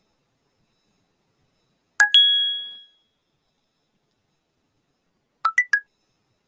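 Short electronic sound effects played back on a phone: about two seconds in, a quick two-note chime whose second note rings out for under a second; near the end, three very short beeps in quick succession that step up and then down in pitch.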